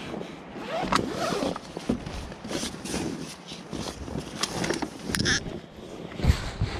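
Nylon tent fly and mesh door rustling and crinkling as hands push the fabric open, in a run of short, irregular scrapes.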